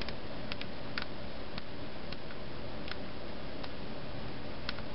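About eight light, irregular clicks and ticks from hands handling cardstock pieces and adhesive foam dots, over a steady hiss.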